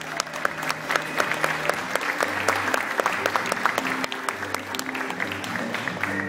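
Audience applauding, many hands clapping densely, with music playing underneath.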